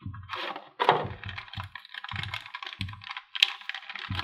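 Plastic bag packaging crinkling and a small cardboard box being handled as a power cable is taken out of it: steady irregular crackling with a few dull knocks against the table.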